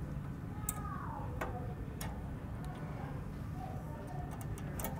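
Sharp metallic clicks and ticks of a hex key working the set screws on the rotary hook of a Bernina E16 embroidery machine, loosening the hook-timing screws, with a short falling squeak about a second in and a cluster of clicks near the end, over a steady low hum.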